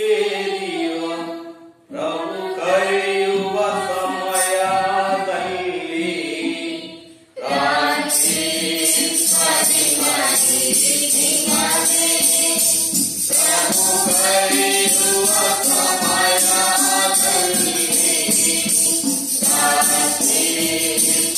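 Voices singing a Christian hymn, with two short breaks between lines; from about eight seconds in, a tambourine jingles steadily along with the singing.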